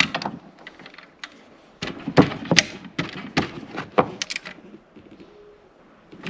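Irregular metallic clinks, knocks and rattles of hand tools and a bolted engine part being worked loose and lifted out of the engine bay.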